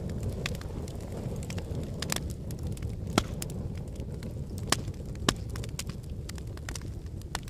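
Wood fire burning in a fireplace: a steady low rumble of flames with scattered sharp pops and crackles, the loudest three snaps a little past the middle.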